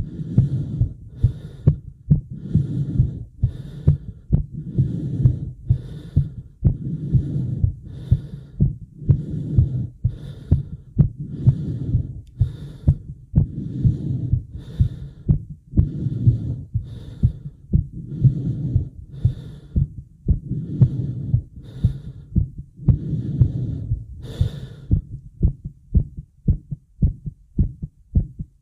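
A person's rapid, heavy breathing while out of breath, over a fast heartbeat. About 24 seconds in the breathing pauses for a few seconds and only the heartbeat thumps are heard, before the breathing starts again.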